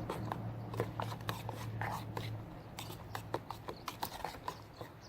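A spoon or utensil stirring a dry food mix into hot water in a cooking cup, making irregular clinks and scrapes against the cup. A low steady hum runs under it and fades out about halfway.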